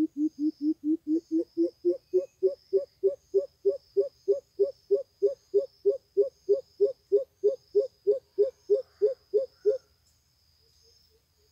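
Greater coucal's call: a long series of deep hoots, about four a second, low at first and then a little higher, stopping about ten seconds in.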